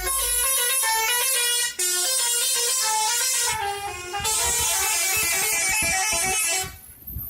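Multi-tone 'telolet' musical air horn on a tour bus, loudly playing a quick tune of stepping notes. It cuts off near the end, leaving low rumbling.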